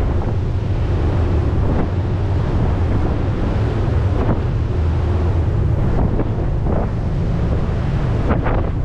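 Wind buffeting the microphone over the steady low drone of the Staten Island Ferry's engines, with water washing past as the boat is under way.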